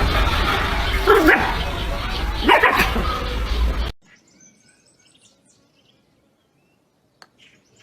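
A dog barking twice over steady background noise, which cuts off suddenly about four seconds in; faint high chirps, like small birds, follow in near silence.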